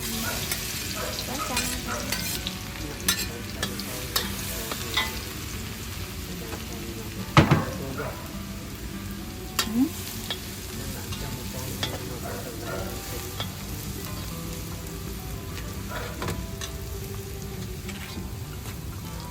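Beef frying and sizzling in a pan while it is stirred, with repeated clinks and scrapes of a utensil against the pan and one loud clank about seven seconds in.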